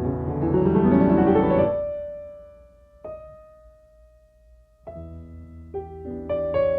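Background piano music: soft chords swell and fade out about two seconds in, a single note lingers through a brief near-pause, and the chords resume near the end.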